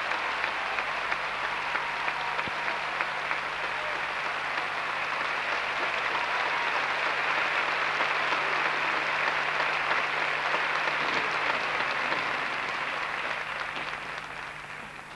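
Theatre audience applauding after a folk dance number, a dense steady clapping that tapers off near the end.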